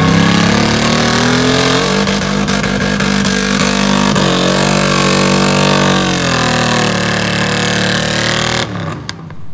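Lifted mud truck's engine revving up hard and held at high revs as the truck churns through a mud pit. The revs climb over the first second or so, dip briefly about four seconds in, ease off around seven seconds, and the sound cuts off suddenly shortly before the end.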